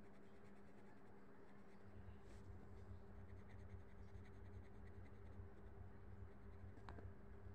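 Faint scratching of a coloured pencil shading on paper, over a low steady hum.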